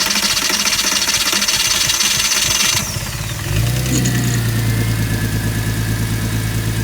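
Porsche Boxster 986's 2.7-litre flat-six engine starting: it cranks and runs unevenly for about three seconds, then settles into a steady idle. The engine has a cylinder-4 misfire, traced to a leaking fuel injector that causes a rough idle.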